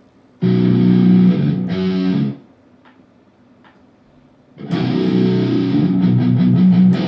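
Electric guitar in standard tuning played through a guitar amp: a low riff about half a second in that breaks off after two seconds, then starts again at about four and a half seconds and keeps going.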